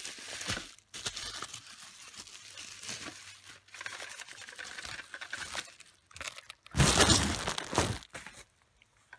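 Plastic bubble wrap crinkling and rustling as it is handled and pulled away, with a louder, rougher burst of handling noise lasting about a second near seven seconds in.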